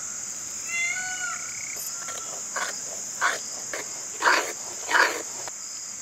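A steel spoon stirring a thick, hot milk-and-cornflour mixture in a heavy kadai, scraping the pan in about five short strokes in the second half. Crickets chirr steadily and high throughout, and a short call is heard about a second in.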